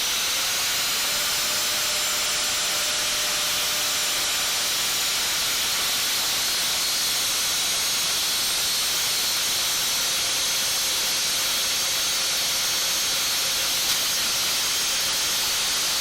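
Angle grinder with a cutting disc running steadily under load, cutting through the seized steel joint between a car's front lower control arm and vertical link.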